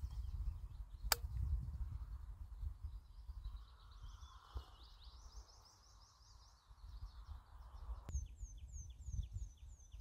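Tree pipit singing: a quick run of high trilled notes, then from about eight seconds in a string of repeated, drawn-out descending notes. A single sharp click comes about a second in, under a low steady rumble throughout.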